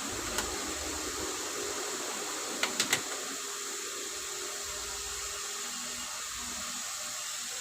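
Steady hiss with a faint click near the start and three quick clicks about two and a half seconds in.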